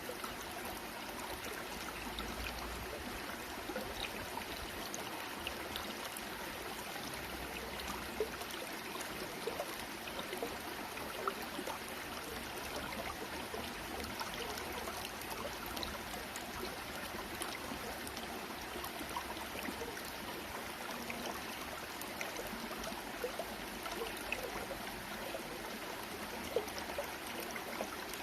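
Steady flowing, trickling water, with small scattered ticks through it.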